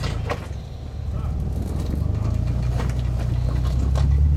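Off-road vehicle's engine working under load as it climbs a rock step, the engine note growing louder and slightly higher from about two seconds in, with scattered sharp knocks of the vehicle against rock.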